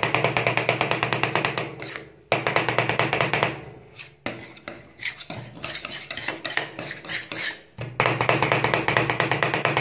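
Two metal spatulas rapidly chopping and scraping mint and dates into an ice-cream base on a steel cold plate: a fast clatter of taps, breaking off about two seconds in. Slower strokes and scrapes follow in the middle, and the fast chopping starts again near the end.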